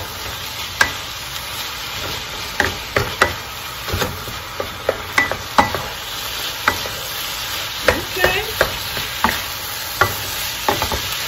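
Shrimp fried rice sizzling in a metal wok as a wooden spoon stirs and turns it. The spoon knocks and scrapes against the pan in irregular sharp clacks over a steady frying hiss.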